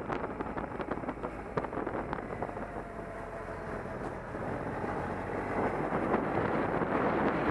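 Wind rushing over the microphone of a moving motorcycle, mixed with its engine running. The rush eases about a second in and builds again toward the end.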